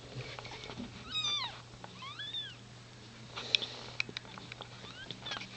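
Cat mewing during a birth: two short high-pitched mews about a second apart, the first falling in pitch, the second rising then falling. A few sharp clicks follow near the middle.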